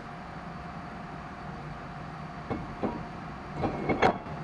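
Metal clunks and clicks from a brake rotor and caliper mounting bracket being fitted onto a pickup's front hub. There are a few knocks in the second half, the loudest near the end, over a steady low hum.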